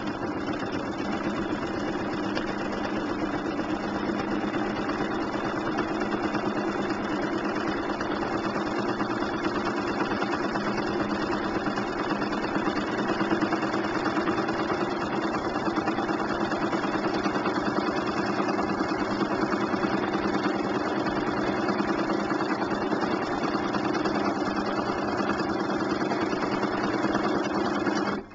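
Sewing machine running steadily while free-motion quilting, the needle stitching continuously through the quilt; it stops suddenly at the very end.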